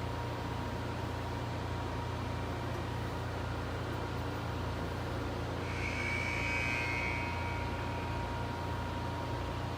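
Large CNC vertical boring mill running: a steady low machinery hum with a faint constant whine, and a brief higher whistling tone about six seconds in.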